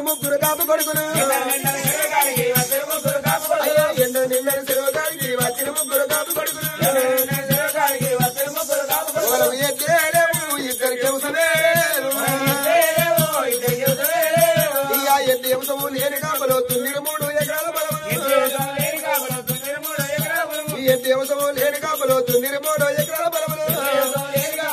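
Telangana Oggu Katha folk music: a regular drum beat and a wavering melody over constant jingling of bells and cymbals as the performers dance.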